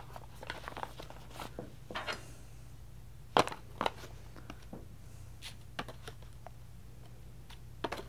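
Paper coffee bag rustling and crinkling as ground coffee is scooped out of it, with scattered light clicks of the scoop, the sharpest a pair about three and a half seconds in and another near the end.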